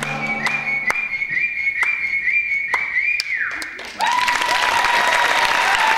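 The closing bars of a Bollywood song: a high whistle-like tone repeats with quick downward swoops about twice a second, then fades out with a falling slide. About four seconds in, the audience breaks into applause, with a held whistling tone over it.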